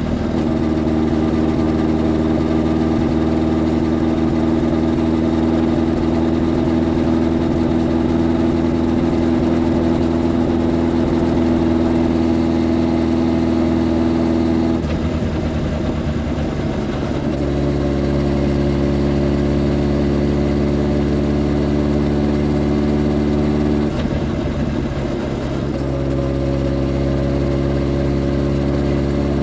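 Motorcycle engine running steadily while riding. Its note breaks up briefly and settles at a different pitch twice, about halfway through and again near the end.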